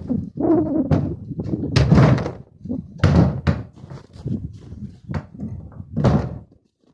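Hollow knocks and scrapes of a plastic (HDPE) sled being handled and set down: a string of separate thuds, the loudest about two and three seconds in.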